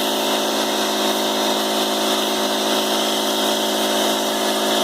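Electric jet pump running steadily, a motor hum under the loud hiss of its water spray.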